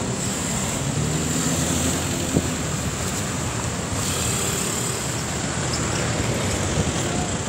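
Steady city street traffic noise: the engines and tyres of cars and vans on the road, with one small click a little over two seconds in.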